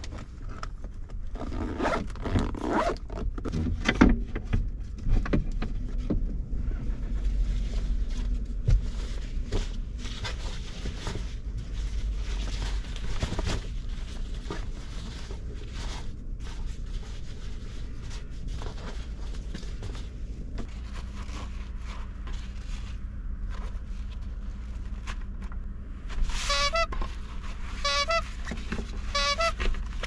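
Cloth bags and packed items being handled and folded: rustling with light knocks, busiest in the first few seconds, over a steady low rumble. Near the end come three short rasping buzzes, like a zipper.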